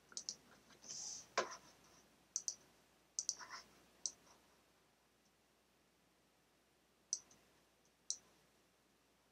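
Faint, scattered clicks at the computer as shapes are drawn and dragged: a quick run of sharp clicks in the first few seconds, a pause, then two more single clicks near the end.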